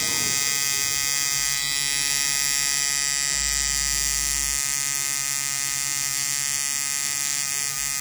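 Tattoo machine buzzing steadily as its needle works ink into skin.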